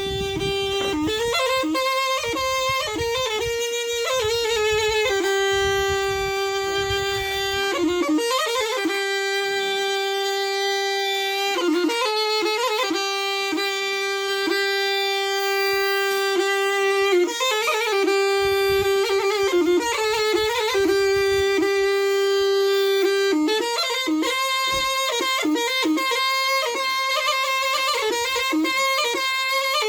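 Zurna playing a folk melody of long held notes broken by quick ornamented runs, with the deep strokes of a davul bass drum under it in places.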